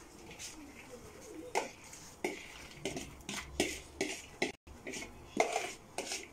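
Shredded cabbage being tipped from a plastic bowl into an enamel pot of broth: a run of irregular short knocks and scrapes as the bowl meets the pot and a hand pushes the cabbage out, louder in the second half.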